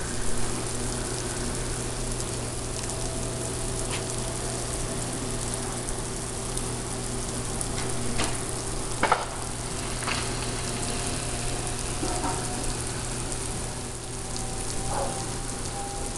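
Freezing rain pattering steadily on ice-crusted snow, a fine crackling hiss, with a few sharper ticks of pellets striking ice.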